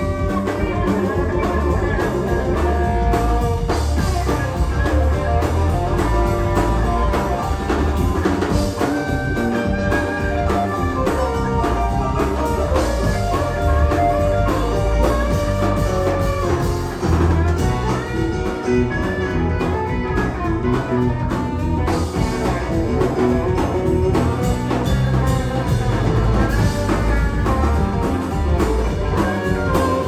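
Live band playing: electric guitar, bass guitar, drum kit and keyboards.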